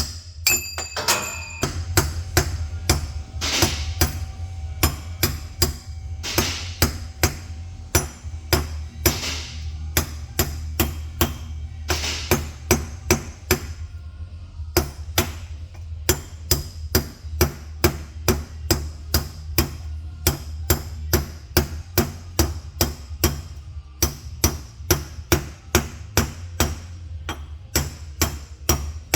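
Background music with a steady, quick percussive beat over a constant bass.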